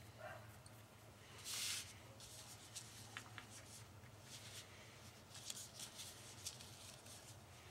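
Faint scratchy rustles and light taps of a paintbrush working acrylic paint on a paper palette and fingers handling small leather earring blanks on the table, with one louder rustle about a second and a half in. A low steady hum runs underneath.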